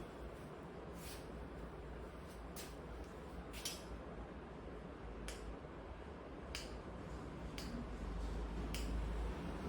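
Sharp snapping clicks from the barber's hands during a head massage, about seven of them spaced roughly a second or so apart, over a steady low background hum.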